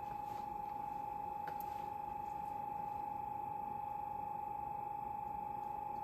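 Silvel 8 kW diesel heater in its start-up cycle, glow plug heating: a steady, high, single-pitched whine.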